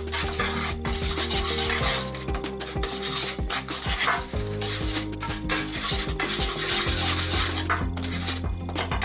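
Dry, irregular rubbing and scraping of hand food preparation, with short clicks, over background music with held notes.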